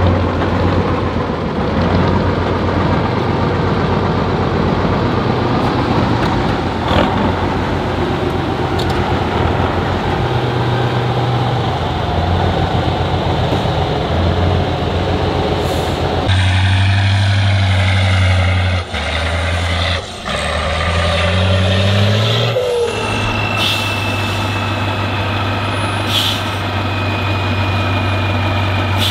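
Heavy off-road trial truck engine running hard, revving up in pitch several times a little past the middle. A thin high whine rides over the engine near the end, and a few short knocks sound along the way.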